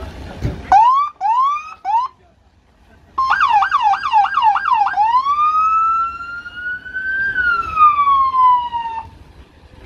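Electronic police siren on a Ford Crown Victoria patrol car, sounded in short bursts. Three quick rising whoops, a pause of about a second, then a fast yelp for about two seconds. It switches to a slow wail that rises, falls and cuts off near the end.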